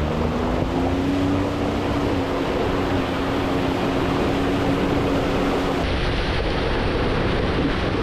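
Can-Am X3 side-by-side's engine running steadily under way, with heavy wind noise on the microphone; the engine tone rises slightly, then holds and fades about six seconds in.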